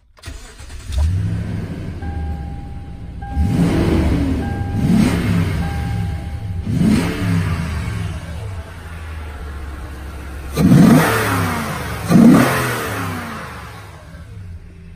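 A 2013 Toyota Tundra's 5.7-litre V8 starts and settles into an idle, then is blipped five times, the last two revs the loudest. Each blip carries some intake noise from the freshly fitted aftermarket cold-air intake. A dashboard chime beeps several times during the first few revs.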